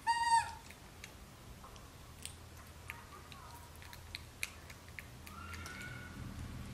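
A baby macaque gives one short, loud, high squealing cry at the start, a cry for food. Light clicks of eating and two fainter calls follow.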